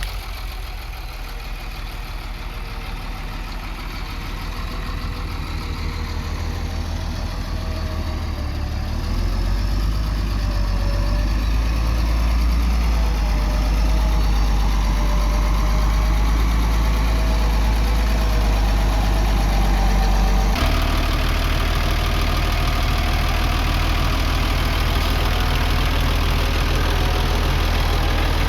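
Diesel engine of earthmoving machinery running with a steady low hum. It grows louder about a third of the way in, and the sound changes abruptly about two-thirds of the way through.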